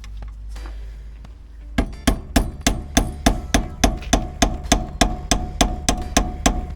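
A hammer strikes a screwdriver on metal at the car's rear hub in a steady run of sharp blows, about three to four a second, each with a short metallic ring. The blows begin about two seconds in, after a low hum.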